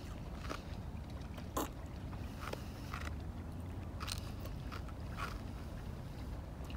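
A man chewing a whole egg, shell and all: the eggshell cracks and crunches between his teeth in short, uneven bites, about one a second, the sharpest about one and a half seconds in. A steady low rumble runs underneath.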